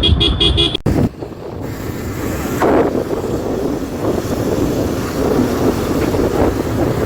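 Wind buffeting the microphone on a moving motorcycle, a steady rushing noise with low rumble. Under a second in, a rapid pulsing beep at about five beeps a second stops abruptly.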